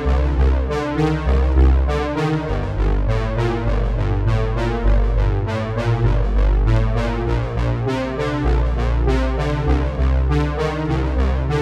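Background music: synthesizer and electric-piano keyboard notes over a steady beat.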